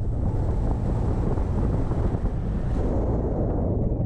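Wind buffeting the microphone over the low, steady rumble of a Jeep Wrangler JK driving across soft desert sand.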